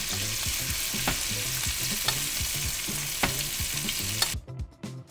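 Hot butter sizzling in a frying pan as a tomahawk steak is basted with a spoon, with a few sharp ticks from the spoon and spatters. The sizzle cuts off about four seconds in.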